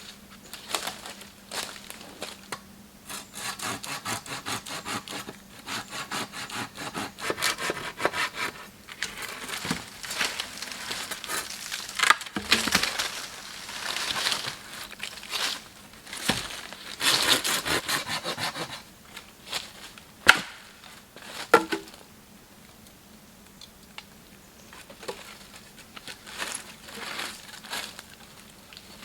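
Wood being hand-sawn in quick, rhythmic back-and-forth strokes, in several runs, then two sharp cracks about twenty seconds in.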